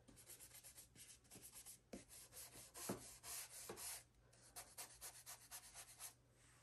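Faint brushing of a round ink-blending brush scrubbing Distress Ink onto colouring-book paper, in quick strokes several times a second.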